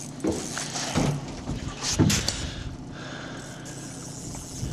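Boat motor running steadily at trolling speed, with a few short knocks and rattles of handling on the boat in the first half.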